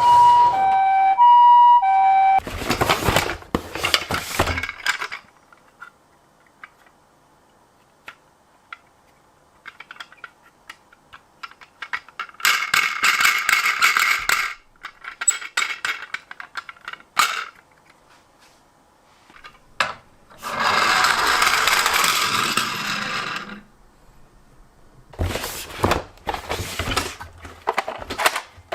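A two-tone hi-lo ambulance siren alternating between two notes, cutting off about two seconds in. Then toy minicars rolling and rattling on a slope in several noisy runs of two to three seconds each, with small clicks and knocks of handling between them.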